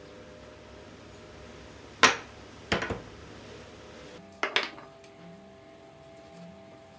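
Small pine wood pieces being set down and knocked against a board on a wooden workbench: one sharp knock about two seconds in, a quick run of lighter knocks just after, and a double knock past the middle.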